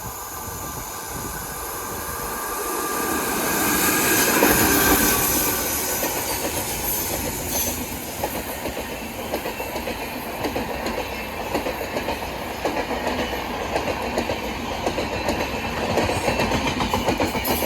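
A train running past close by. It grows loudest about four to five seconds in, then its wheels keep up a steady clickety-clack over the rail joints as the coaches go by.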